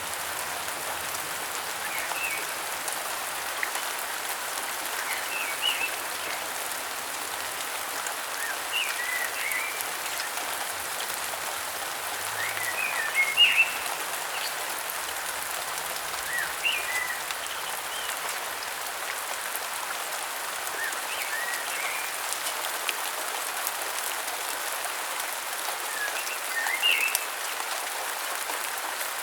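Steady rainfall, with a bird calling in short chirping phrases of quick rising and falling notes every three to four seconds.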